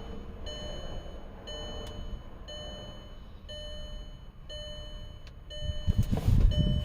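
An electronic warning chime beeps steadily about once a second over a low hum, and a louder low rumbling noise comes in near the end.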